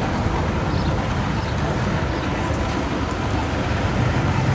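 Engines of classic muscle cars and everyday traffic idling and creeping forward in slow traffic: a steady low rumble.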